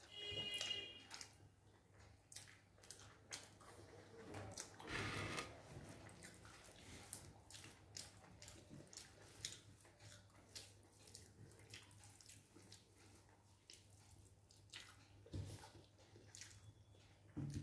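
Faint eating sounds: soft, wet mouth clicks and chewing of rice and chicken, repeating irregularly throughout, with a slightly louder sound of the same kind about five seconds in.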